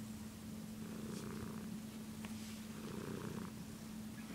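Domestic cat purring in slow, even cycles that swell and fade about every two seconds, over a constant low hum.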